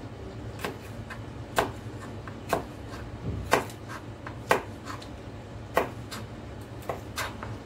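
Kitchen knife slicing a green bell pepper into thin strips on a plastic cutting board: a short knock of the blade striking the board about once a second, irregularly spaced, eight or so cuts.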